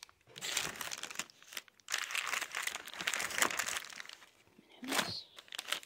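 Plastic snack wrappers and chip bags crinkling as they are handled, in two long stretches of rustling and a shorter one near the end.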